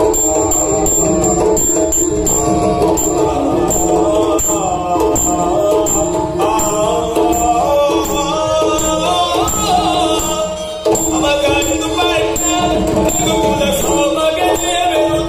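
Loud traditional Indian stage music with singing over a steady jingling beat, playing through the venue's loudspeakers for a group dance.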